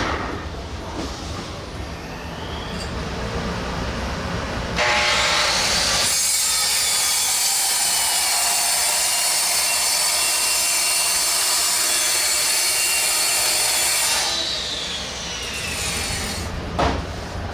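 CNC router spindle starting up about five seconds in, running loud and steady for about nine seconds, then winding down with a falling whine. It is machining a clear acrylic amp-rack lid.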